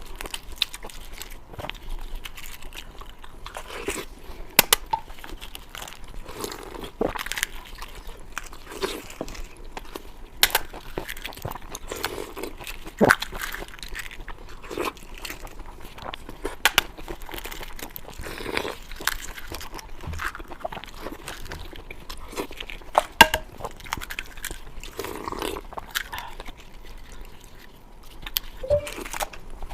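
A person chewing and biting spicy pork belly close to the microphone, with irregular sharp crunches and clicks every second or two over soft wet chewing.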